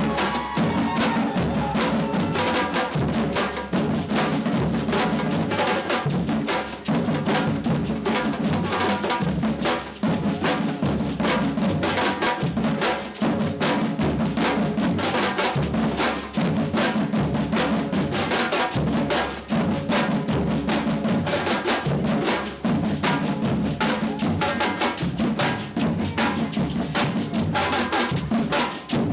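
Samba percussion band drumming a fast, steady rhythm.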